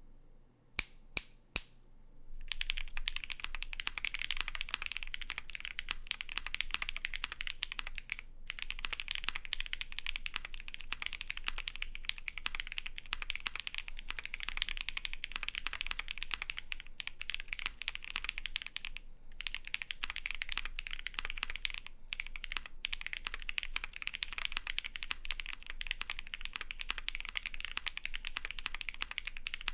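Fast, steady typing on a Vega custom mechanical keyboard with lubed Holy Panda tactile switches, a polycarbonate plate and GMK keycaps, each keystroke a deep clack. It is preceded by three sharp, louder clicks, and the typing pauses briefly twice.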